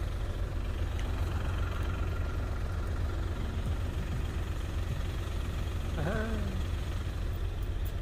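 Steady low rumble of a car's engine idling, heard from inside the car as it sits in a slow queue of traffic. A short vocal sound comes about six seconds in.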